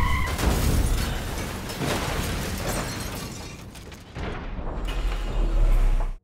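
A large explosion blasts under an SUV, its roar fading over a few seconds with scattered cracks of debris. Near the end a low rumble swells and then cuts off suddenly.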